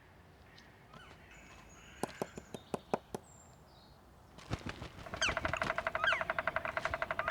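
Black woodpecker's beak striking wood: a few separate sharp knocks about two seconds in, then from about five seconds a fast, even roll of strikes, about a dozen a second, that rings with the resonance of the tree. Short falling bird chirps sound over the roll.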